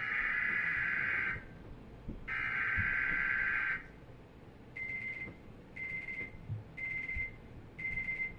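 Electronic emergency alert tones: two long buzzing tones of about a second and a half each, then short high beeps about once a second. They herald a new weather alert, a severe thunderstorm watch.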